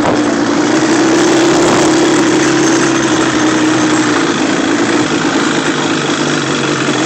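Off-road ATV or dirt bike engine running steadily, its note easing a little about four seconds in, over a wide rushing noise.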